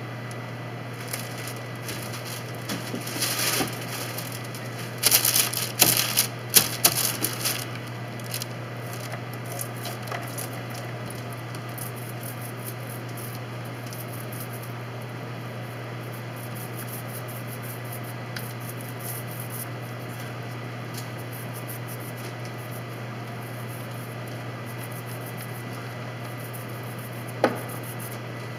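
Handling noises while painting with a brush: crackling and rustling a few seconds in, then faint scattered brushing ticks, and one sharp click near the end. A steady low hum runs underneath.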